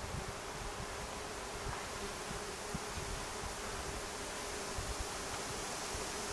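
Wasps buzzing at their paper nest: a steady hum over a faint outdoor hiss.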